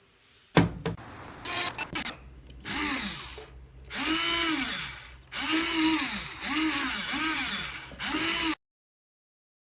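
Battery-powered gravity electric salt and pepper grinder's small motor running in several short bursts, each whine rising and falling in pitch as it spins up and winds down, about five times. A knock and a few clicks come before it.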